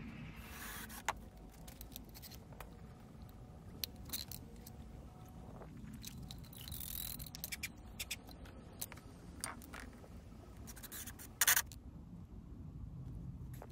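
Scrapes and clicks of hands-on work: silicone sealant being squeezed from a caulking gun along a door frame, and a hardwood door sill being set down onto the sealant. A short, louder scrape comes near the end.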